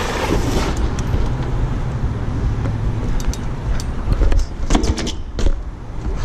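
BMX bike rolling along a paved sidewalk: a steady low rumble of tyres and wind on the microphone, with passing car traffic. A few sharp knocks sound between about four and a half and five and a half seconds in.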